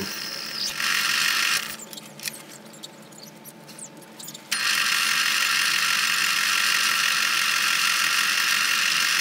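Metal lathe running, then stopping for about three seconds with a few clicks as its levers are handled. It starts again abruptly and runs steadily.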